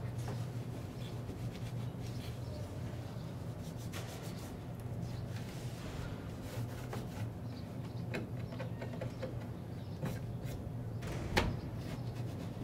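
A door being worked by its handle over a steady low hum: small latch clicks and rustles, then one sharp knock near the end.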